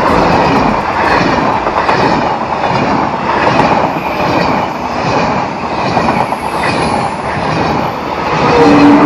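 TGV Atlantique high-speed trainset passing close by: a steady rush of wheel and rail noise as the coaches go by. Near the end a brief two-note tone sounds at the loudest moment.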